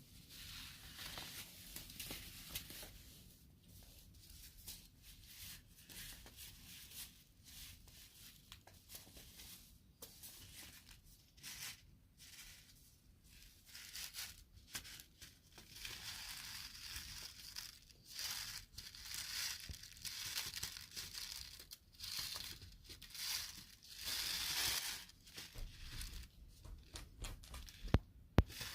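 Paper seed packets being handled close up: a long run of irregular crinkles, crackles and sticky peeling rustles, with a sharp click just before the end.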